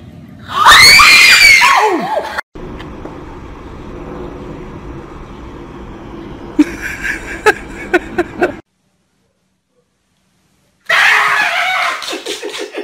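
Children screaming loudly for about a second and a half, shrill and rising and falling in pitch. This is followed by quieter background noise with a few sharp clicks, a short silence, and another loud burst of sound near the end.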